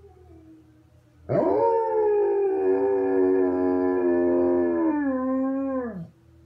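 German shepherd howling: one long howl that starts about a second in, holds a steady pitch for several seconds, then drops in pitch and stops near the end.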